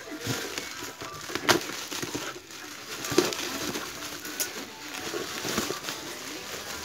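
Bubble wrap and packing tape crinkling and rustling as hands tear and pull them off a cardboard box, with a few sharp cracks along the way.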